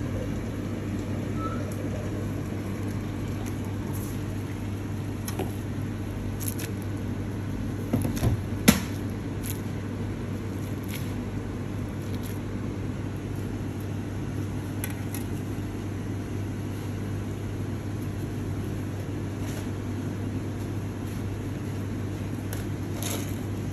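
Steady low mechanical hum, with scattered light clicks and a sharp knock about eight and a half seconds in.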